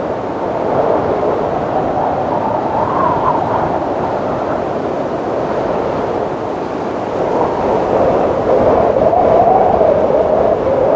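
Wind sound effect: a steady rush with a moaning tone that slowly rises and falls in pitch, swelling a little about eight seconds in.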